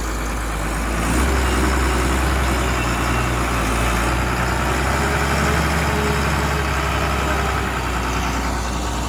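Front loader's diesel engine running steadily, getting louder about a second in.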